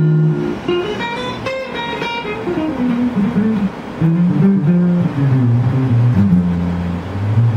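Ibanez Artcore AF75 hollow-body archtop guitar being played: a chord rings at the start, a quick run of bright notes follows about a second in, then a single-note line steps downward over low bass notes.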